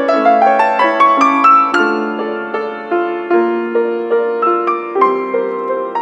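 Grand piano played four hands: a quick rising run of notes over the first two seconds, then a slower melody over held lower notes.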